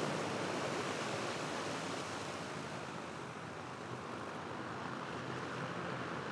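Steady rushing noise of the HY4 hydrogen fuel-cell electric aircraft's spinning propellers as it taxis, with a faint low hum beneath.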